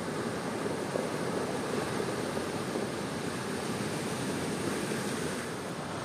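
Ocean surf breaking on the shore, a steady wash of waves with no distinct single crash.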